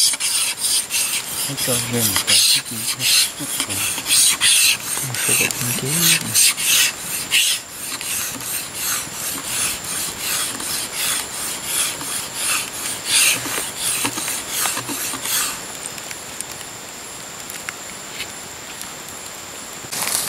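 Dry shaved-bamboo tinder rustling and crackling as it is crumpled and worked by hand, in a run of sharp irregular crackles that thins to a softer rustle after about fifteen seconds.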